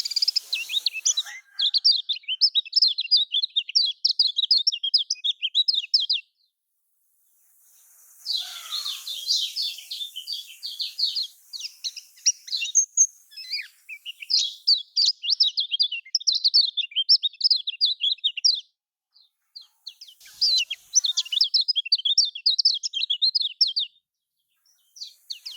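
Kecial kuning (yellow white-eye) singing in long runs of rapid, chattering twitter, high-pitched phrases a few seconds long separated by brief silences. This is a lure song used to prompt a quiet kecial kuning into singing.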